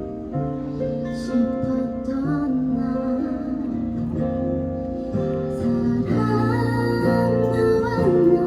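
A slow pop ballad played live on acoustic guitar and keyboard, with a woman's voice singing over it in places.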